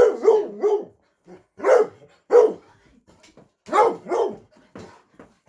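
An excited pet dog vocalizing in greeting: a wavering whine for about a second, then four short, falling barks in two pairs.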